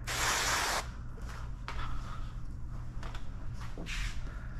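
A hand-pump spray bottle spritzing installation solution onto paint protection film in one short hiss lasting under a second, with a shorter, fainter spritz near the end. Between them come faint handling noises over a steady low hum.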